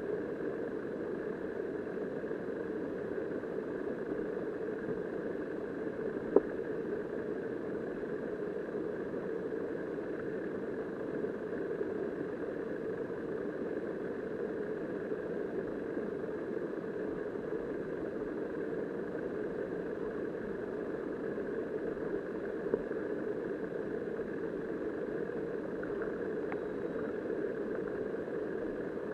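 Steady, muffled rushing of river current picked up by a submerged camera. There is a sharp click about six seconds in and a smaller one later.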